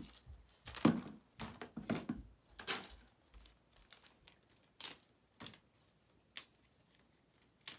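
Artificial berry sprays being handled and their wire stems pulled apart: plastic berries and stems rustling and clicking in scattered short bursts.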